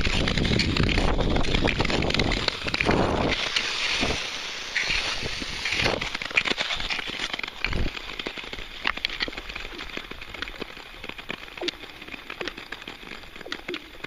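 Nordic touring skate blades gliding over frosted lake ice, with a loud rush of wind and blade noise for about the first three seconds. The rush then drops away suddenly, leaving scattered light clicks and ticks from blades on the ice.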